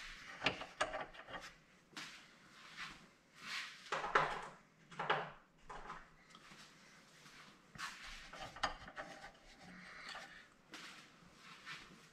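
Irregular clinks, knocks and rubbing of tools and metal parts being handled and shifted about, coming in a few short spells.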